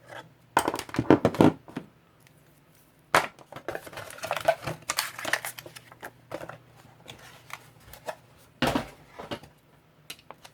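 Box contents and packaging being handled: irregular rustling, crinkling and light knocks, loudest about a second in, again around three to five seconds in, and briefly near the end.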